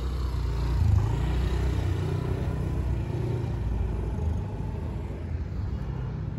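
A car driving slowly past at close range, its engine a low steady rumble.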